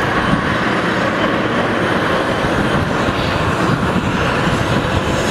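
Steady jet aircraft noise across an airport apron: a continuous rumble and hiss with no distinct events.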